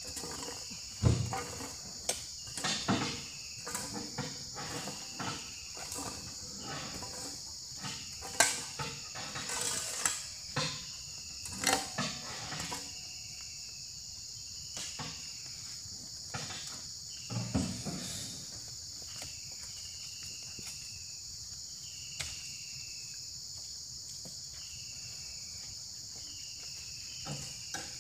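Insects droning steadily and high-pitched, with a short falling chirp that repeats every second or two. Scattered knocks and scrapes, the loudest events, come from loose oil palm fruits being raked and scooped.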